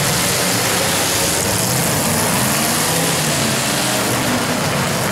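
Engines of full-sized demolition derby cars running together, their pitch wavering, under a steady loud rush of noise.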